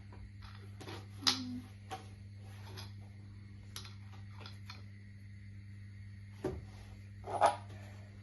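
A few light clicks and knocks of small parts being handled during wheel-bearing work: one about a second in and two near the end, the last the loudest, over a steady low hum.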